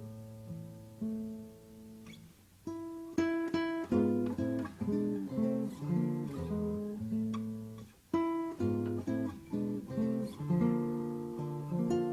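Acoustic guitar music: plucked notes and chords, fading low, then picking up louder about three seconds in.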